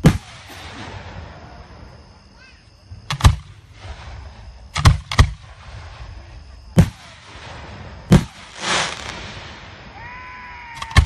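Aerial firework shells bursting: about six sharp bangs, the first the loudest and two in quick succession midway, with a short hissing crackle after the last bang.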